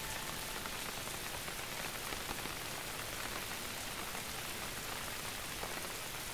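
Steady rain falling, an even hiss of drops on the ground.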